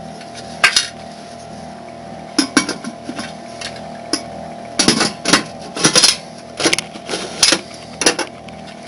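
Stainless steel Presto pressure cooker lid being set on the pot and twisted shut to seal it: a series of irregular metal clinks, knocks and scrapes of lid against pot rim and handles.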